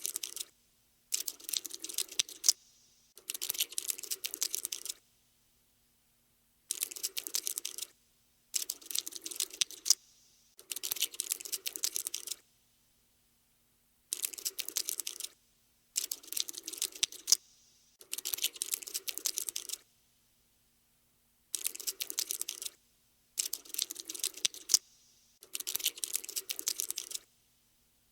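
Scuttling sound effect for a cockroach: dense, rapid dry clicking in bursts of one to two seconds, broken by short silences, a dozen or so times over.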